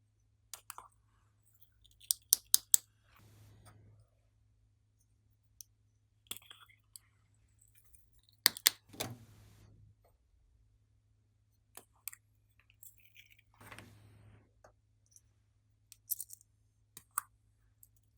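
Glossy slime being worked by hand, giving sharp clicks and pops in small clusters with softer squishy stretches between them.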